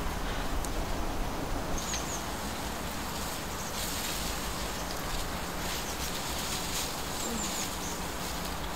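Outdoor ambience: a steady hiss of background noise with a few faint bird chirps, about two seconds in and again near the end, and some light rustling.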